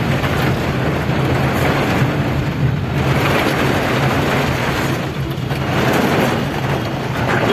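Steady road noise heard from inside a vehicle driving in heavy rain: a constant low engine hum under the hiss of wet tyres and rain.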